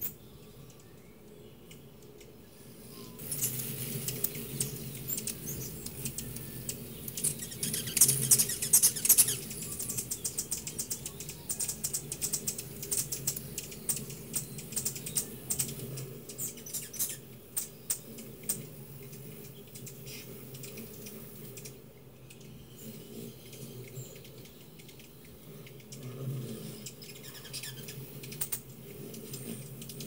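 Hummingbirds at feeders: a busy run of quick, high chip notes and chatter, densest about eight seconds in and thinning out after about twenty seconds.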